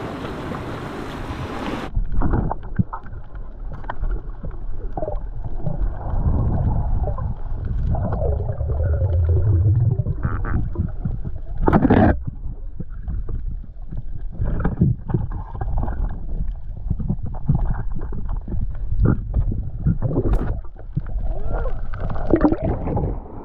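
Wind and surf for the first two seconds, then muffled underwater sound heard through a waterproof camera housing: water moving, with many small clicks and knocks. A sharp knock comes about twelve seconds in and another near the end.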